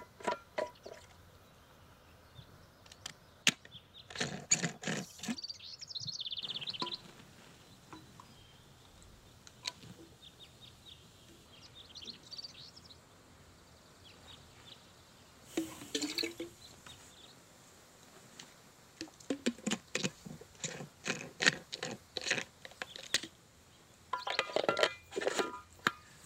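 Birds chirping in bushland, with intermittent bursts of rustling and clicking from things being handled.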